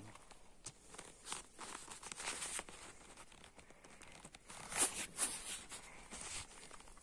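Scattered rustling and crinkling handling noises, short and irregular, the loudest a pair of scrapes about five seconds in.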